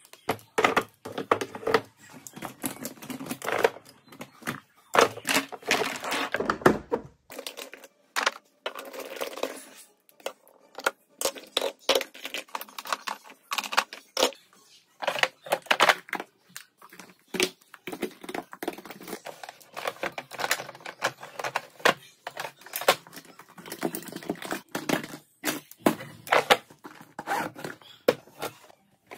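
Irregular clicks, clacks and rustles of makeup being handled: compacts, palettes and tubes picked up, knocked together and set down in clear acrylic drawers.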